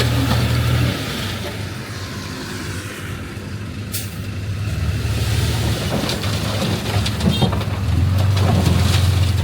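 Heavy diesel engine of earthmoving machinery running. It eases off about a second in, then builds back up under load and is loudest near the end. A brief sharp sound comes about four seconds in.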